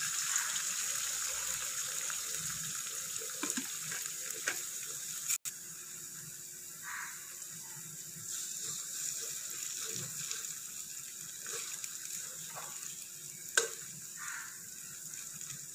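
Beaten eggs sizzling in hot oil in an aluminium kadai as they are poured in and spread with a steel spatula: a steady frying hiss with a few light spatula scrapes. The sound drops out for an instant a little over five seconds in, and a sharp spatula tap comes near the end.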